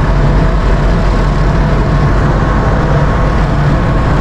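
Steady deep drone of heavy marine diesel machinery, even in level throughout, with a faint steady whine above it.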